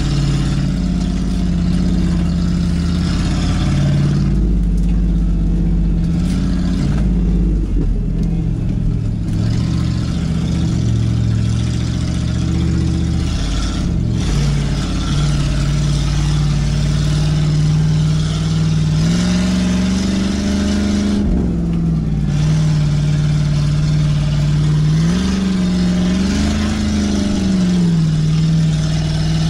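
1988 Ford F-250 4x4 pickup's engine running as it drives through snow, heard from inside the cab. Its pitch rises and falls with the throttle, climbing and settling twice in the second half.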